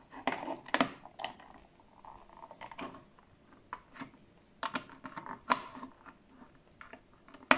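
Small screwdriver prising at the slot of a plastic thermostat receiver case: irregular sharp plastic clicks and taps as the case clips are eased apart.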